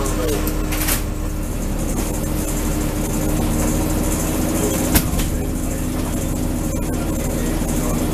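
Lobster boat's engine running steadily, with a light knock about a second in and a sharp knock about five seconds in.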